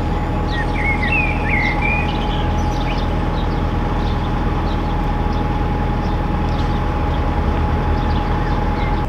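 A narrowboat's diesel engine running steadily while cruising, with a thin steady whine over it. A small bird chirps a quick run of notes in the first couple of seconds.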